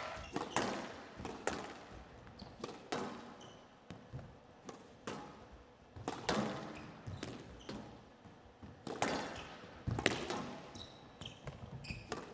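Squash rally: the ball is struck by rackets and hits the front wall in sharp, echoing cracks about every half second to a second, with a few short high squeaks of court shoes on the floor.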